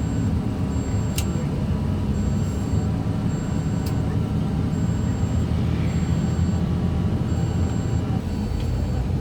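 Steady low rumble of a vehicle on the move, with two sharp clicks about one and four seconds in.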